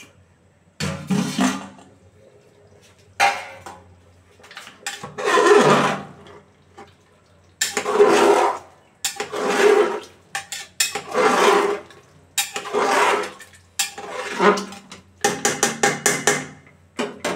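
Metal spatula scraping and stirring mutton curry inside an aluminium pressure cooker, metal on metal, in repeated strokes about once a second, with a quick run of short scrapes near the end.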